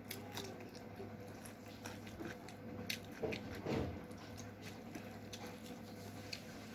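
Close-miked eating sounds of chicken curry and rice: wet chewing and lip-smacking with small scattered clicks, and a couple of louder squelches about three to four seconds in.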